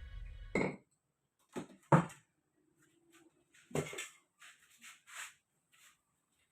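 Music ends in the first second, then several separate knocks and clatters: two close together at about one and a half and two seconds in (the second the loudest), another near four seconds, and a few fainter taps after.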